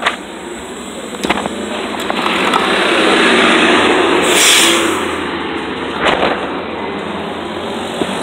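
Road vehicle noise swelling and then easing over several seconds. A short sharp hiss comes about halfway through, and a few knocks sound near the start and later on.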